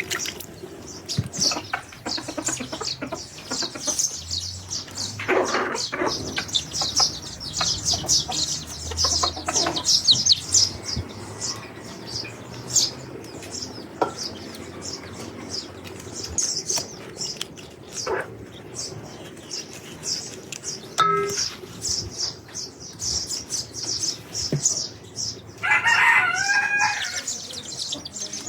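Domestic chickens, with a rooster crowing once near the end over a steady scatter of short, high-pitched chirps.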